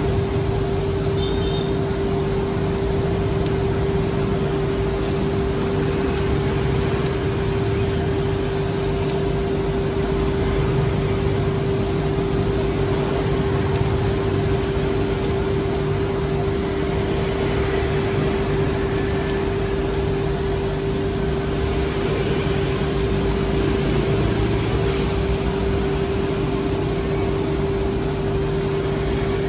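Steady machine hum with a single constant tone over a low rumble, its level unchanging.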